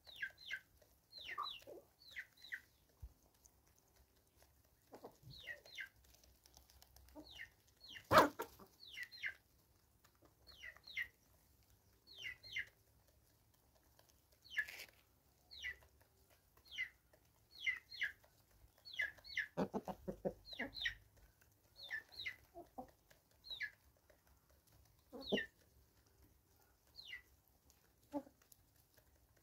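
Free-range chickens clucking now and then, with low pulsed clucks heard most clearly about twenty and twenty-five seconds in, over a string of short high chirps that sweep downward, often in twos and threes. A single sharp knock about eight seconds in is the loudest sound.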